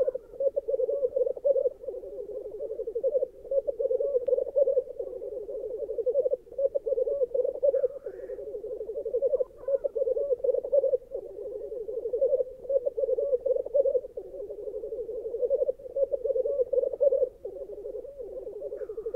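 Black grouse males giving their bubbling display song at a lek: a continuous chorus of low, rapid cooing with short breaks every few seconds. A couple of short, higher rising calls cut through, about eight seconds in and again at the end.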